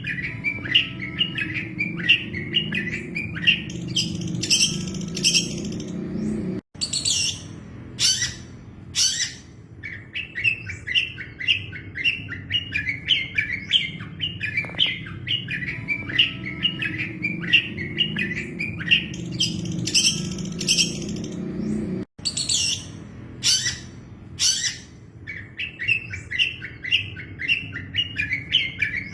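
Long-tailed shrike (cendet) singing a rapid, chattering run of chirps, broken by groups of sharp, high piercing notes. A low steady hum runs underneath, and the sound drops out for an instant twice, where the recording loops.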